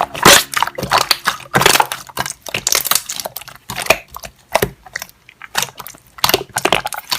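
Slime being squeezed and poked by hand, giving an irregular run of crackling, popping clicks.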